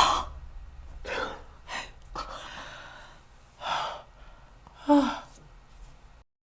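A person gasping and breathing out in short breathy bursts, with a brief voiced sound about five seconds in. The audio cuts off abruptly just after six seconds.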